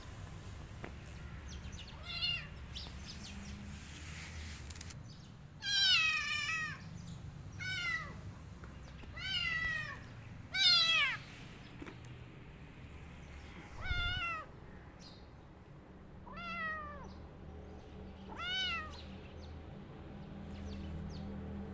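Kitten meowing repeatedly: about eight short, high-pitched meows a second or two apart, each rising and then falling in pitch, the loudest near the middle. A low, steady hum runs underneath.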